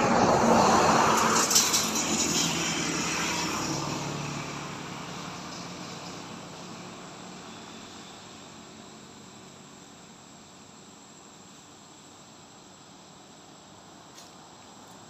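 A road vehicle passing, loudest in the first couple of seconds and fading away over the next several seconds. Insects keep up a steady high buzz throughout.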